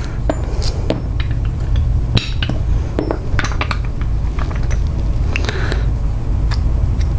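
Small metal clicks and clinks of a mailbox lock being handled as its cam is taken off, irregular and scattered, over a steady low hum.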